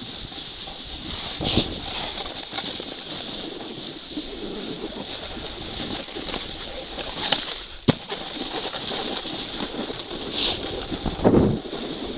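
Edges hissing and scraping over groomed, packed snow on a fast downhill run, with wind rushing over the microphone. Several louder swooshes come with the turns, and there is one sharp click just before the eight-second mark.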